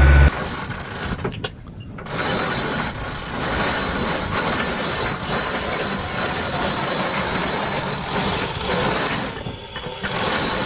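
Sailboat deck winch ratcheting as a line is hauled in to set a sail, with a steady clatter of gear and rigging. It dips briefly about a second and a half in and again near the end.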